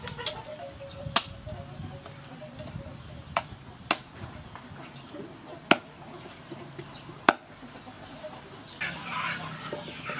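A large knife chopping raw chicken on a wooden chopping block: about six sharp single chops, spaced one to two seconds apart. Near the end, chickens clucking.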